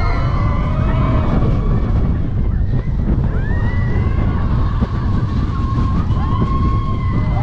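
Wind buffeting the microphone of a camera riding a moving roller coaster train, a steady heavy rumble. High squeals that rise and fall in pitch sound over it several times.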